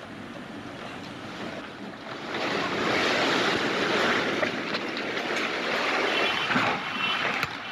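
Heavy rain mixed with hail pouring down, a dense hiss that grows louder about two seconds in, with a few sharp ticks of hailstones striking.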